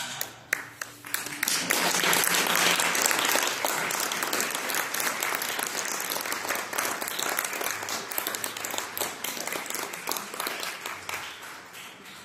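Audience applauding: it breaks out suddenly, builds over the first two seconds, then gradually dies away near the end.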